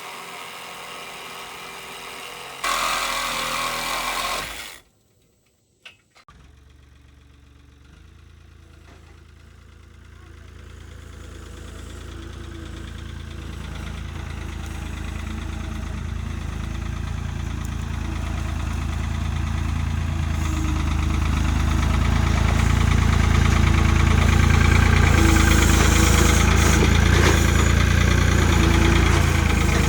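A vehicle engine running steadily and growing gradually louder over about fifteen seconds, then holding level. Before it, a few seconds of other noise end in an abrupt cut.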